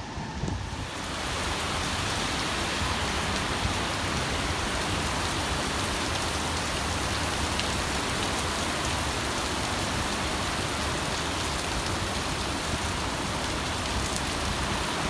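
Heavy typhoon rain falling steadily, a dense even hiss that builds up about a second in and then holds.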